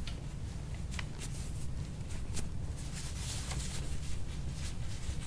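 Soft rubbing and rustling of hands working over a patient's back, with a few faint sharp clicks, over a steady low hum.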